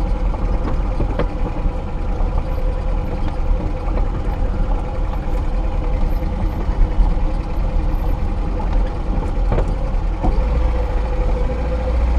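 Lada Niva 2121's four-cylinder petrol engine running at low revs while driving slowly over rough dirt track, with occasional knocks and rattles from the car going over the uneven ground. The engine rumble grows louder near the end.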